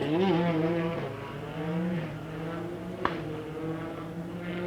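Škoda Octavia WRC's turbocharged rally engine running at a lumpy idle, with a brief blip of revs at the start and one sharp anti-lag backfire pop about three seconds in.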